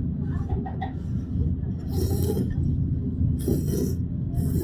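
Ramen noodles being slurped, three long hissing slurps in the second half, over a steady low hum.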